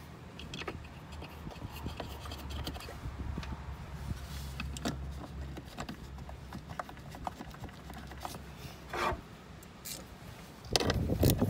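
Hands handling a plastic wiring plug and harness at a blower motor resistor: plastic rubbing and scratching on plastic, with scattered small clicks, and louder rubbing in the last second.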